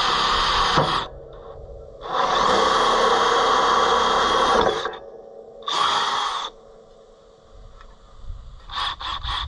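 Cordless drill boring a 5/16-inch hole through hard wood. It runs for about a second, stops, runs again for about two and a half seconds, then gives one short final burst. A few light knocks come near the end.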